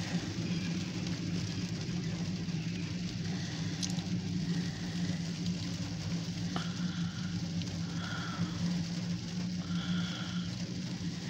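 Steady low hum of an idling engine heard from inside a car, with a few faint short high squeaks in the second half.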